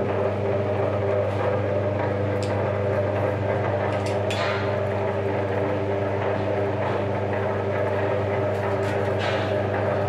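Electric copper wire stripping machine running with a steady motor hum. A few brief swishes come through as a thin wire is fed into it.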